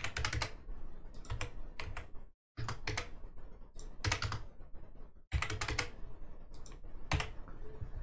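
Typing on a computer keyboard in quick clusters of key clicks, with short pauses about two and a half and five seconds in.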